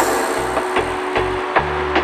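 Background music with a steady beat and a bass line, about two and a half beats a second.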